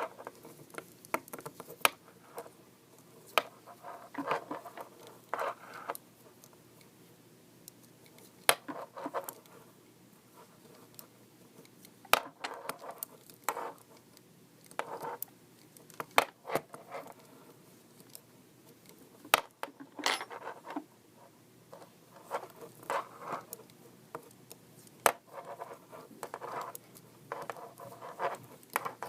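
Knitting needles clicking and scraping against each other, with yarn rustling, as stitches are worked quickly in a purl round. Sharp ticks come irregularly, several times a second at the busiest moments, between short scratchy strokes.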